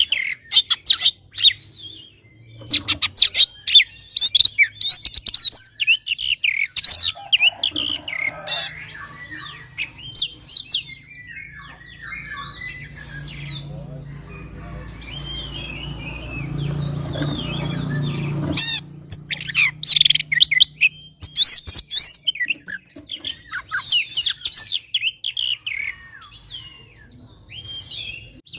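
Oriental magpie-robin (kacer) singing in fast runs of chirps and whistles. It is in excited, fighting-mood song. The song drops to softer, scattered calls over a low hum in the middle, then bursts back in about two-thirds of the way through.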